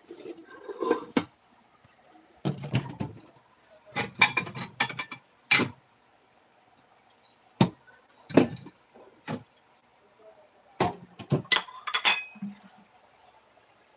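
Irregular knocks and clinks of kitchen utensils and cookware: sharp strokes, some dull and some ringing, come singly and in short clusters with quiet gaps between.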